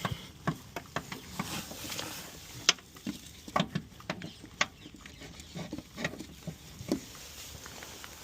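Irregular sharp metal clicks and clinks of a ratchet and socket working on the rear shock absorber's 10mm top-mount bolts as they are tightened.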